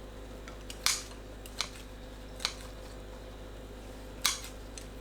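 Kitchen scissors snipping dried shredded squid into bite-size pieces: a few sharp, separate snips spread over several seconds.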